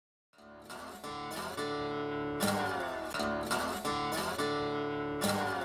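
Music: strummed acoustic guitar chords fading in as a song's intro.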